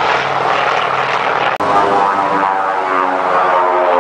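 Aircraft engine noise: an even rushing sound, cut off by a brief dropout about a second and a half in, followed by a droning engine tone with several overtones that slowly glides in pitch as the aircraft passes.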